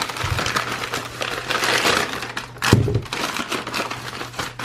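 Plastic delivery packaging being cut and torn open by hand, with continuous crinkling and crackling and a dull thump a little past halfway.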